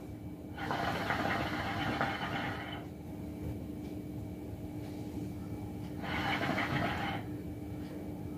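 Cocoyaya Mini Hoob hookah bubbling as smoke is drawn through its water base, in two pulls, the first about two seconds long and the second about a second, over a steady low hum.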